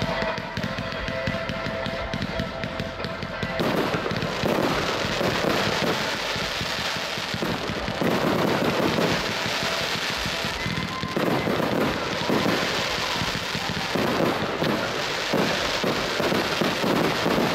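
Large fireworks display with music underneath. About four seconds in, a dense run of shell bursts and crackling stars sets in and keeps going.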